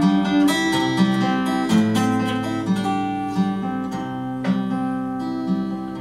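Solo acoustic guitar playing an instrumental passage, with picked notes ringing over a repeating pattern of low bass notes.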